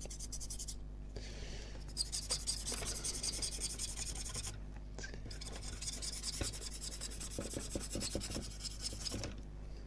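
The felt-tip applicator of a Loctite plastics activator pen scratching and rubbing over the plastic of a TRS-80 Model 1 case, in strokes with two short pauses, priming the surfaces before gluing.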